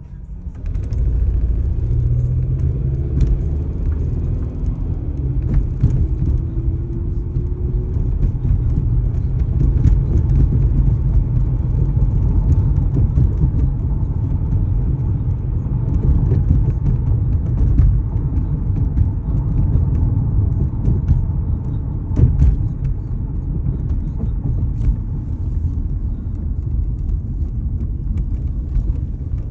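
Inside a 2004 Toyota Corolla, heavy low rumble of the car pulling away and driving. The engine note rises over the first several seconds as it accelerates, with scattered short knocks and rattles. The owner hears this as a knocking and shaking, as if the engine is struggling and about to die.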